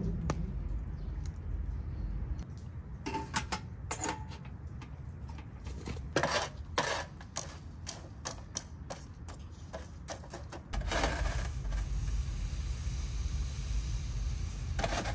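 A metal rod poking and scraping through charcoal embers in a rusty steel fire tray, making a scattered run of clinks and scrapes. Later a steady low rumble sets in, and there is one more knock near the end.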